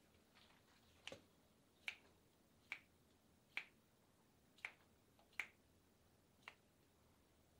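Sharp snapping pops, seven in a row about one a second, as a masseuse pulls the client's fingers one by one during a hand massage.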